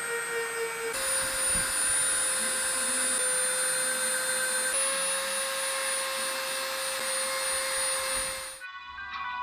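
Electric power tool motor running steadily with a polishing wheel on a rusty hammer head: a constant whine over a rushing hiss, stepping slightly in pitch a few times. It cuts off abruptly near the end and background music starts.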